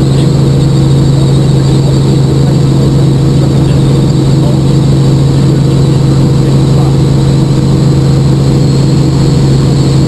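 Helicopter in steady flight heard from inside the cabin: the engine and rotor make a loud, constant drone with a strong low hum.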